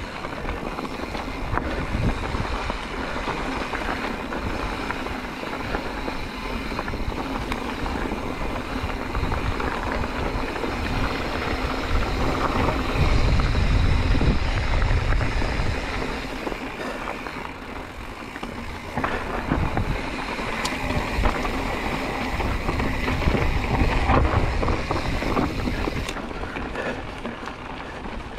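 Mountain bike rolling fast down a rocky dirt trail: tyres crunching over gravel and stones, with scattered knocks from the bike and low wind buffeting on the camera microphone. It gets louder about halfway through and again near the end.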